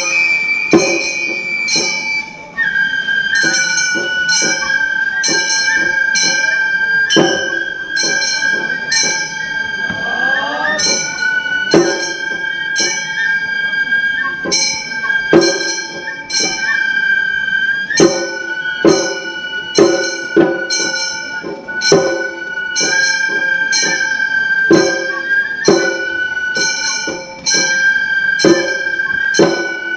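Gion-bayashi festival music: a high bamboo transverse flute holds long notes that change every few seconds, over small hand gongs (kane) struck in a steady pattern about twice a second.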